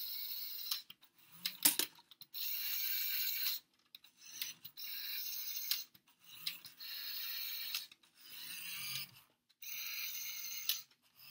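LEGO Technic RC car's electric motor and plastic gear train running in about six short bursts of a second or so each as the car is driven forward and back, with small clicks in the pauses between.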